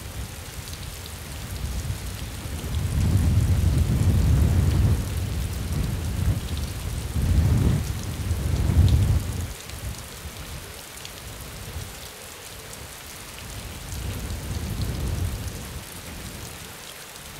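Steady rain falling, with deep rolling thunder that swells three times: about three seconds in, around eight seconds, and more faintly near the end.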